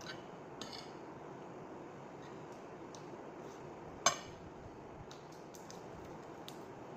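Metal cutlery clinking against a ceramic plate, with a few light clinks and one sharp, louder clink about four seconds in. Small ticks follow near the end, over a steady room hiss.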